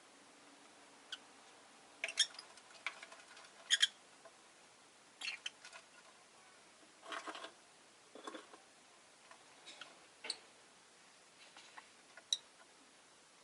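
Rosy-faced lovebird making scattered short, sharp chirps and clicks, about a dozen at irregular intervals.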